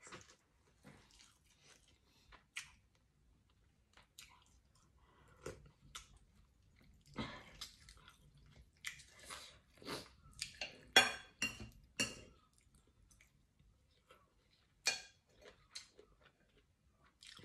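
A person chewing chicken and rice close to the microphone, a run of irregular short chewing and mouth sounds with scattered clicks of a spoon on a plate. The busiest and loudest stretch comes about halfway through.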